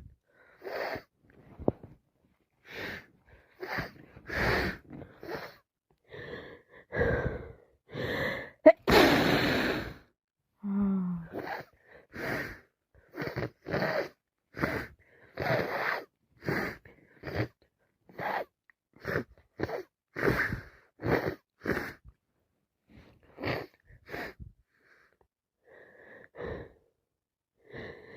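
A woman's gasping breaths and sneezes, a run of short bursts about once a second, with one loud sneeze about nine seconds in.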